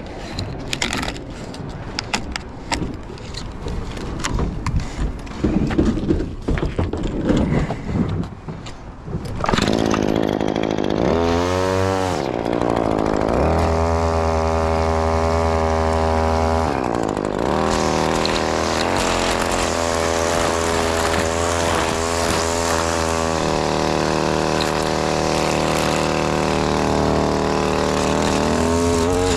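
Irregular rustling and clicking for the first nine seconds or so, then an ECHO SRM-2620T string trimmer's two-stroke engine revs up and down and runs at high throttle, with changes in speed along the way.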